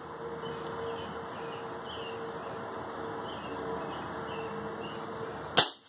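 A single sharp shot from a Gamo Bone Collector Whisper .177 air rifle near the end, over a steady background rush with birds chirping.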